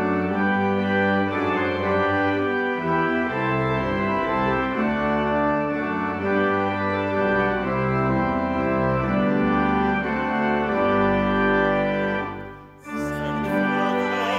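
Church organ playing the introduction to a hymn in sustained, held chords. It breaks off briefly about 13 seconds in, then the music starts again.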